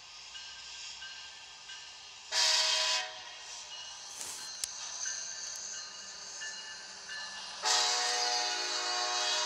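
Norfolk Southern diesel locomotive's air horn sounding a multi-note chord for the grade crossing: a short blast about two seconds in, then a long blast starting near the end.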